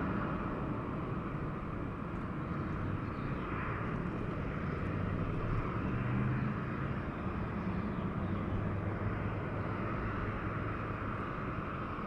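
Steady, distant jet airliner engine noise around an airport, with a faint low hum.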